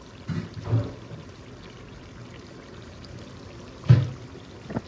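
Kofta gravy simmering in a non-stick pan, with a few short thumps as the wooden spatula and pan are handled: two near the start, the loudest about four seconds in and a smaller one just after.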